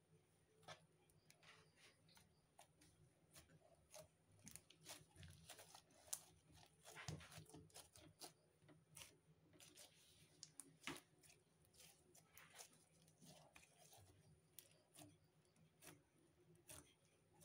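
Pink slime being squeezed and kneaded by hand, giving faint, irregular sticky clicks and small pops.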